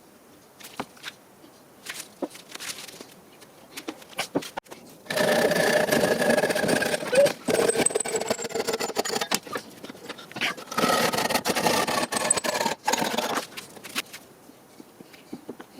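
Light clicks and knocks of handling, then a small electric power tool motor running under load twice, for about five seconds and then about three, its whine sagging slightly in pitch as it works.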